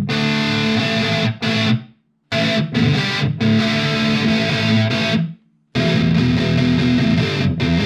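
Electric guitar through a Fender Mustang LT25 modelling amp on its "Gated Metal" preset, playing heavily distorted chords. The sound cuts off abruptly into silence twice, about two seconds in and again about five and a half seconds in, as the preset's noise gate shuts between phrases.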